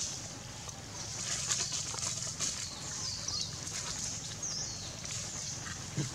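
Outdoor ambience: short high chirps repeating every second or so over a steady low hum, with brief rustling in dry leaf litter.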